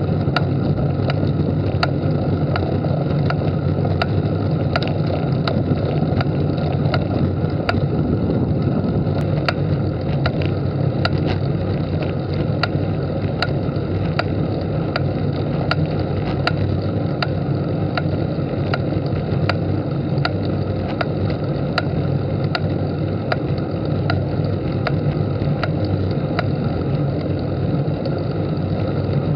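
A 2005 Colnago Dream HD Plus road bike under load on a climb in the small chainring makes a regular tick, about two a second, over steady wind and road noise. This is an unexplained tick that comes on under hard climbing effort and not on the flats.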